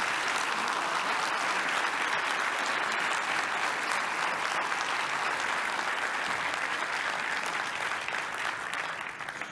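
Audience applauding, a long steady round of clapping that thins out and fades near the end.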